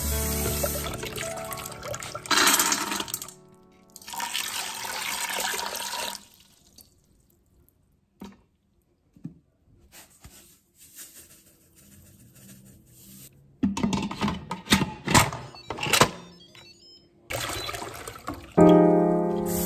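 Tap water running onto black beans in a mesh strainer and splashing into a steel bowl in a sink, stopping after about six seconds, over background music. Later comes a quick run of sharp clicks and knocks, then water runs again just before the music comes up.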